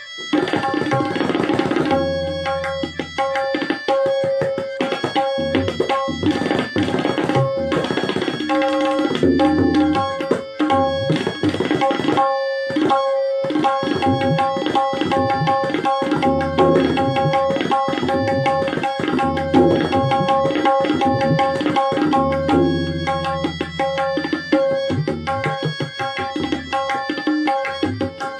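Tabla solo: fast, dense strokes on the right-hand dayan and left-hand bayan throughout, with stretches of deep bayan bass strokes about two seconds in and again around twenty-two seconds.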